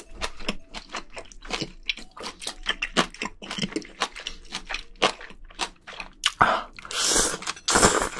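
Close-miked chewing of spicy seafood and noodles, a dense run of wet mouth clicks and smacks, then loud slurping as noodles are sucked in near the end.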